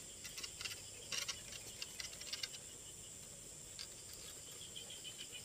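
Brief rustling and crackling of leaves and a plastic bottle-and-bag catcher on a pole as it is pushed into a leafy branch, in several short clusters in the first half. Under it runs a steady high drone of night insects, and insect chirping starts near the end.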